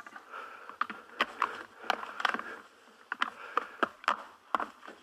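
Cape buffalo bulls' horns knocking and clacking together in a string of sharp, irregular knocks as the bulls fight for dominance.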